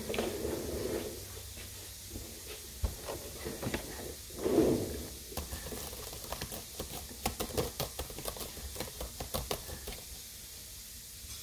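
Laptop keyboard typing in sped-up footage: a fast, dense patter of key clicks, thickest in the second half, with a couple of short muffled sounds in the first half.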